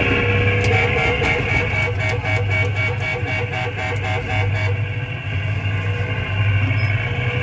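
Electronic sound effects from a coin-operated kiddie ride car's speaker as its dashboard buttons are pressed: a rapid run of pulsing beeps, about four or five a second, that stops about four and a half seconds in, over a steady low hum.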